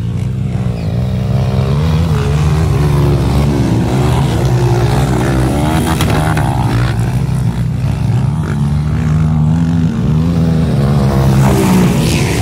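Several motocross dirt bikes running on a dirt track, their engine notes overlapping and rising and falling as the riders open and close the throttle around the track and over jumps. One bike gets louder near the end as it comes close.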